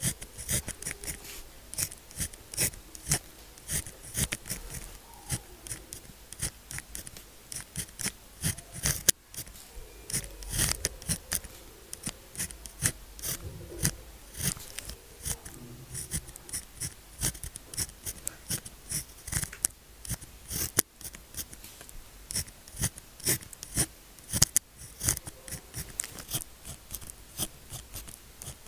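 Pen nib scratching on paper while writing Chinese characters: quick, irregular scratchy strokes with short pauses between them and the odd sharper tick.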